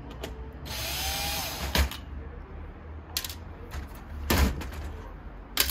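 Porter-Cable cordless drill/driver running for about a second and a half as it backs a screw out of the keyboard's inner plate, its motor pitch rising and then falling. It is followed by several sharp knocks and clicks from the drill being set down and the plastic keyboard parts being handled.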